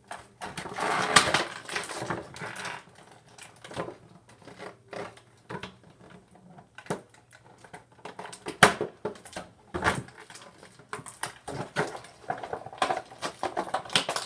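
Plastic and cardboard action-figure packaging being handled and pried open: a burst of crinkling and tearing in the first few seconds, then scattered clicks, taps and rustles.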